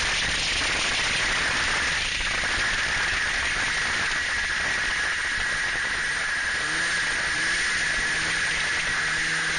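Snowmobile riding at speed, heard from the rider's camera: a steady rushing noise of wind on the microphone and the running sled, with a faint engine tone rising briefly a few times in the second half.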